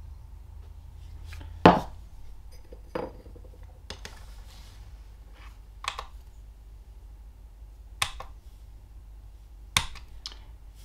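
Light handling knocks as a plastic beaker and a bisque test tile are set down on a tabletop and a small digital scale: several separate sharp knocks and clicks, the loudest about one and a half seconds in.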